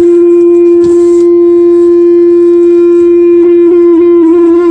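A loud, continuous, one-pitch tone with a buzzy edge, given off by a device inside a package. It wavers slightly in pitch near the end.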